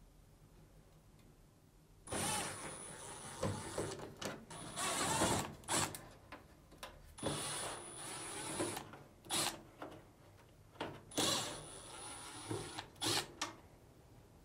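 Cordless drill-driver backing four Phillips screws out of a dryer's sheet-metal cabinet: the motor runs four times for a second or two each with a thin high whine, and short clicks and rattles of the screws and bit fall in between.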